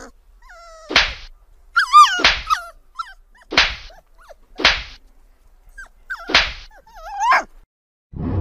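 A cat slapping a small dog on the head with its paw: five sharp slaps, one every second or so. Between them the dog gives high, wavering whines and yelps. A low thud comes near the end.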